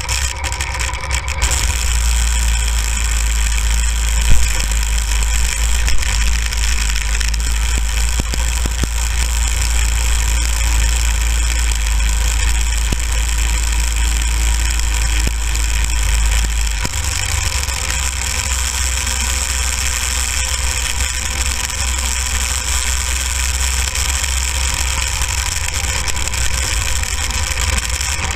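Go-kart engine running steadily as the kart drives over snow, its low drone easing about two-thirds of the way through. Two sharp knocks stand out, about four and six seconds in.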